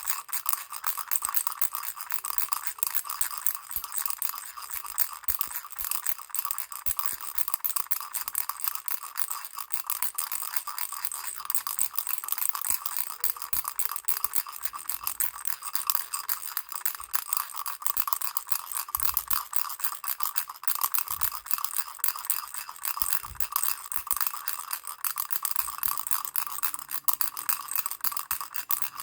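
Baby rattle shaken continuously: a fast, dense, unbroken rattling of small pieces inside the toy, bright and high-pitched.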